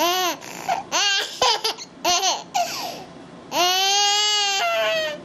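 A young child's high-pitched squeals and babbling, several short sliding cries followed by one long held squeal that drops to a lower pitch near the end.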